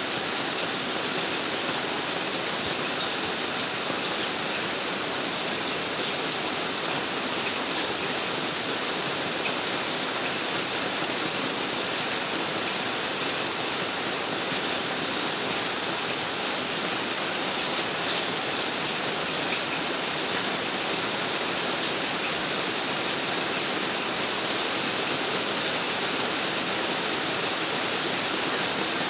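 Steady heavy rain falling without a break: a dense, even hiss with many small drop ticks.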